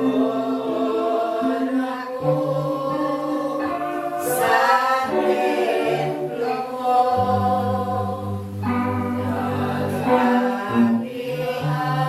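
A group of voices singing together in long, overlapping held notes, with a low sustained note underneath that changes pitch every few seconds: charismatic congregational praise singing.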